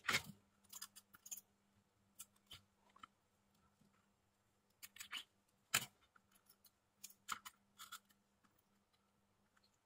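Soldering iron tip and solder wire touching and scraping along a row of IPM pins on a circuit board: faint scattered clicks and scratches, the sharpest right at the start and about six seconds in, over a low steady hum.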